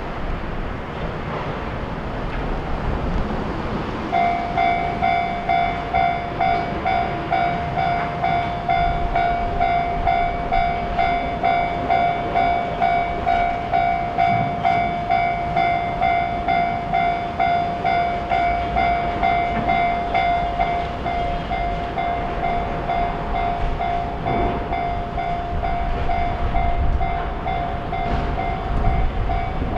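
Japanese railway level-crossing alarm starting about four seconds in and ringing in an even, fast 'kan-kan' rhythm, over a low rumble: the crossing is warning of an approaching train.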